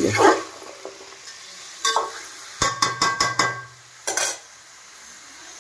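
Metal utensil stirring chicken in a large aluminium pot, scraping and clinking against the metal, with a quick run of clinks in the middle and a faint sizzle beneath.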